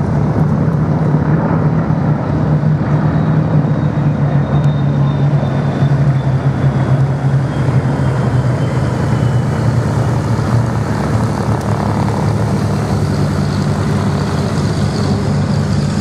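Piston engines of a formation of a Bristol Blenheim with Spitfires and Hurricanes flying past in a steady, continuous drone. A faint high whine glides slowly down in pitch a few seconds in.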